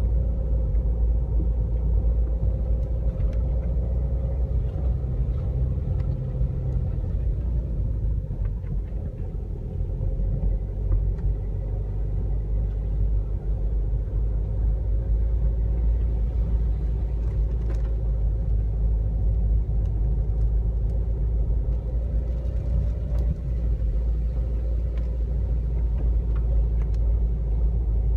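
A car being driven, with a steady low rumble of engine and road noise and a faint engine tone that drifts slightly in pitch.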